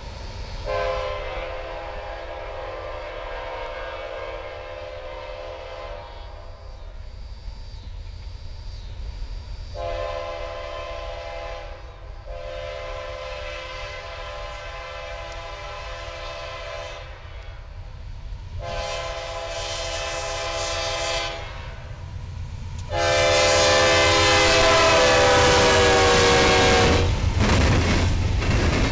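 Diesel locomotive's air horn blowing a series of long blasts, typical of the warning for a grade crossing. The last blast is much louder as the locomotive comes alongside, its pitch sagging as it passes. It is followed by the low rumble of the engine and the clatter of wheels on the rails.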